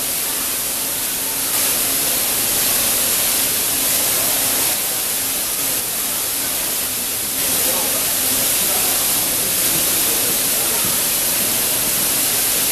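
Heavy rain on the station's platform roof and water pouring down through the leaking roof: a loud, steady rushing hiss.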